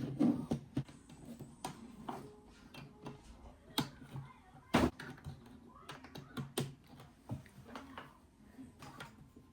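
Irregular light clicks and taps of small plastic and metal parts being handled, with a few sharper knocks among them, as a Nintendo Switch dock's internals are worked on by hand.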